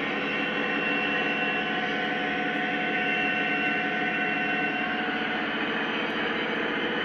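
O-scale model autorack freight cars rolling past on model track: a steady rolling rumble with a fast, even clatter from the wheels, over a steady hum.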